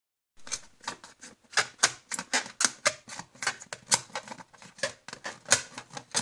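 A marker pen drawn over the skin of an inflated rubber balloon in quick short strokes, writing letters, about three to four strokes a second. It starts about half a second in, after a moment of silence.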